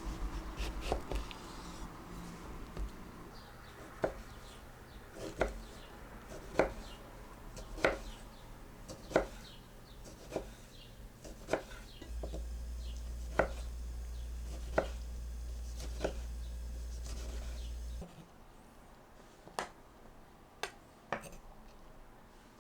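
Knife chopping on a cutting board in slow, single strokes, about one every second and a half, with a few more cuts near the end. A low hum runs under the strokes for several seconds in the middle.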